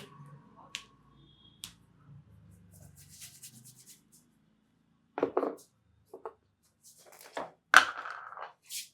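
Hands working a head during a massage: faint rubbing and scratching on hair and skin with a few small clicks, then several sharp smacks in the second half, the loudest near the end.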